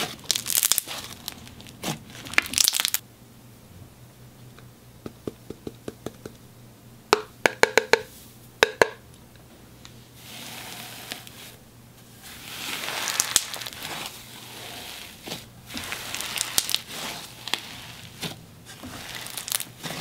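Slime packed with fake plastic snow being squeezed and pressed by hand, crunching and crinkling, with a quick run of sharp pops about seven to nine seconds in.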